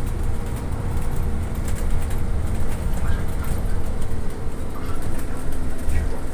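Cabin noise of a trolleybus in motion: a steady low rumble of road and running gear, with a faint steady hum over it.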